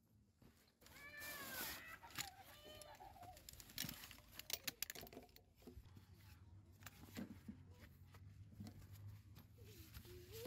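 A few short, arching animal cries in the first three seconds, then sharp clicks and rattles as a folding camp chair's frame is put together. A low steady hum comes in about six seconds in.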